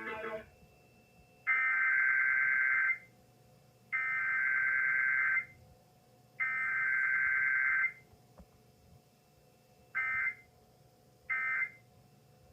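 Emergency Alert System SAME data tones for a required weekly test: three harsh, buzzing digital header bursts, each about a second and a half with gaps between, followed near the end by short end-of-message bursts.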